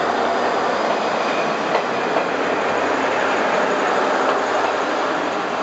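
Kominato Railway KiHa 200-series diesel railcar pulling out and running past along the platform: a loud steady rumble of engine and wheels on rail, with a couple of sharp wheel clicks about two seconds in.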